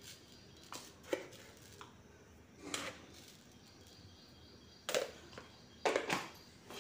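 Steel spoon tapping and clinking against a steel bowl as spoonfuls of sugar are tipped into semolina batter: a series of short, separate taps, the loudest cluster near the end.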